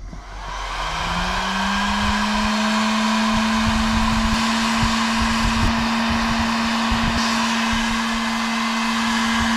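Electric heat gun with a reflector nozzle attachment running. Its fan motor spins up over the first second or so, then holds a steady whine with a rush of hot air while it shrinks heat-shrink tubing onto a crimped battery-cable lug.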